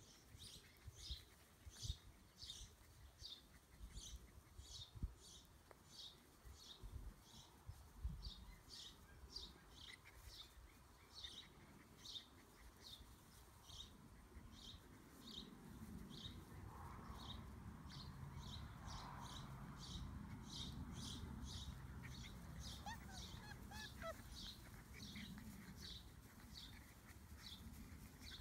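A bird repeating a short high chirp about twice a second, faint, over low outdoor rumble that grows louder in the second half.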